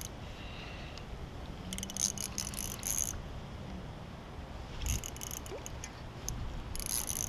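Ultralight spinning reel clicking in three spurts of a second or so while a hooked carp is played on light line.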